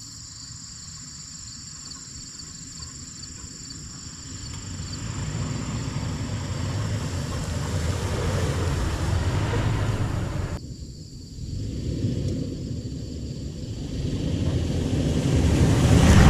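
Low, steady rumble of a vehicle on the move, which grows louder about a third of the way in, drops off abruptly past the middle, then builds again. High insect trilling fades out in the first few seconds.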